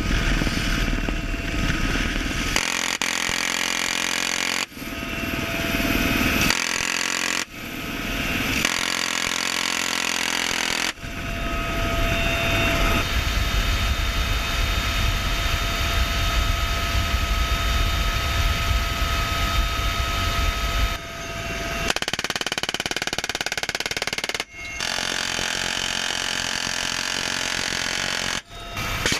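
Bell UH-1Y Venom helicopter running: a steady turbine and gearbox whine over the low rumble of the rotor. The sound jumps abruptly several times as it changes from one shot to another.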